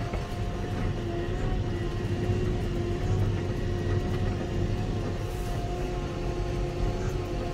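Fendt tractor driving at road speed, heard from inside the cab: a steady engine and drivetrain drone with a constant whine, over a low rumble from the tyres on a rough, snow-covered gravel road.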